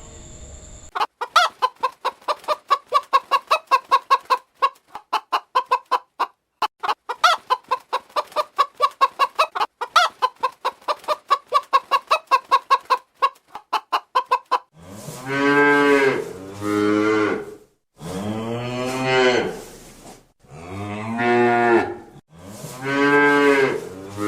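Chicken clucking in a fast run of short clucks for about the first fourteen seconds. Then a cow moos several times, each moo a long drawn-out call.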